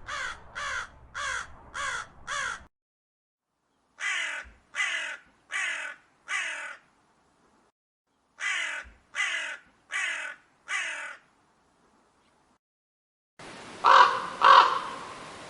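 Crow cawing in quick runs of harsh caws: about five, then four, then four, with pauses between runs. Near the end, two louder, lower caws come over a steady background hiss.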